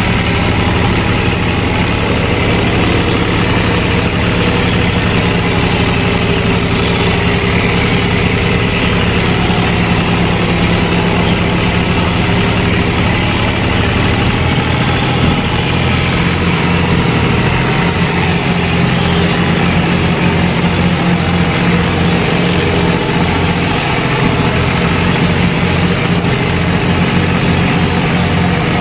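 Tractor engine sound, running steadily at idle. About halfway through, its low note turns into a choppier, pulsing beat.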